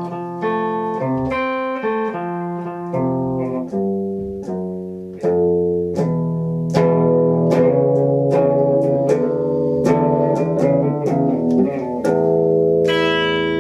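Electric guitar solo: a run of quickly picked notes, with a higher note struck and left ringing near the end.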